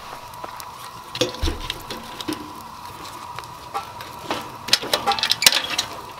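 Wood fire crackling and popping in a small wood-burning tent stove, with a cluster of louder knocks and clicks about five seconds in as a hand works at the firebox.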